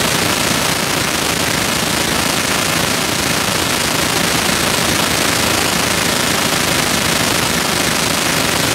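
Steady crowd noise from spectators cheering during a swim race, filling an indoor pool hall.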